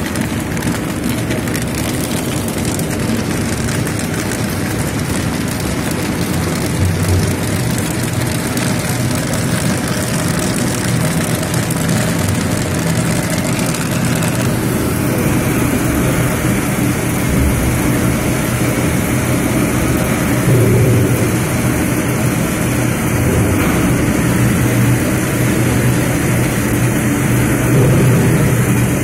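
Industrial popcorn-making machinery running: a loud, steady mechanical drone with a low hum underneath.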